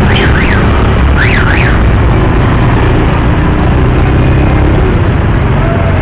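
Wind rushing over the microphone and a boda boda motorcycle's engine running through heavy traffic. In the first two seconds a warbling electronic tone like a car alarm sweeps up and down in two quick bursts.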